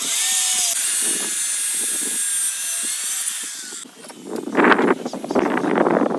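A high-pitched power tool runs steadily for nearly four seconds and then cuts off suddenly. Irregular scraping and knocking follows.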